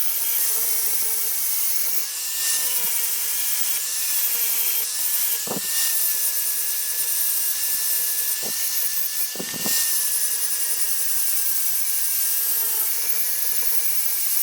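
Electric grinder running steadily against steel, a high whine over hiss whose pitch sags slightly as it is pressed into the work. A few short knocks come in the middle.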